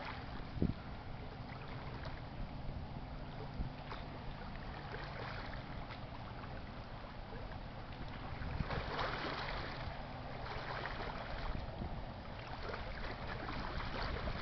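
Low, steady engine drone of a passing cargo freighter, under wind on the microphone that swells for a second or so about two-thirds of the way in, with a few light handling knocks.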